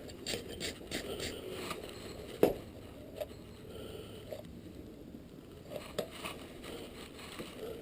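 Blacksmith's work at the forge: a rhythmic rasping, about three or four strokes a second, for the first couple of seconds, then a few scattered sharp metal clicks and knocks, the loudest about two and a half seconds in.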